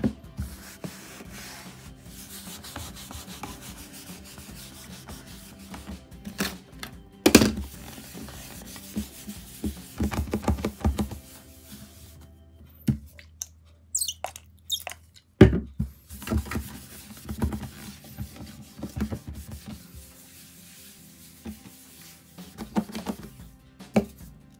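Rubbing and scattered knocks on a wooden tabletop as it is wiped and polished, over faint background music; the sharpest knocks come about 7 and 15 seconds in.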